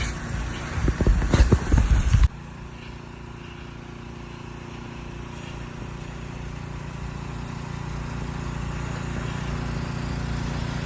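A pressure washer's engine running steadily, its hum growing slowly louder. It is preceded by about two seconds of loud, uneven rumbling that cuts off abruptly.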